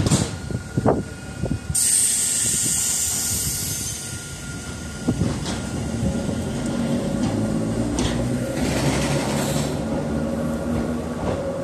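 Hakone Tozan Railway electric train at the platform: a few knocks, then a loud burst of compressed-air hiss about two seconds in. A steady electrical hum with a held tone builds up later, with a second, softer air hiss near the end.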